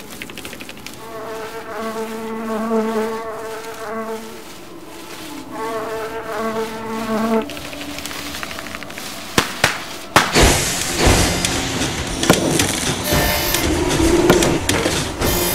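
An insect-like buzzing sounds twice in the first half, each a few seconds long. About ten seconds in it gives way to loud scraping and sharp knocks, with a metal blade being worked between wooden floor tiles.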